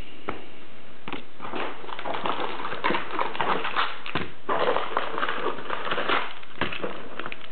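Foil-wrapped 1998-99 Flair Showcase basketball card packs rustling and crinkling in irregular bursts as they are pulled out of the cardboard hobby box by hand.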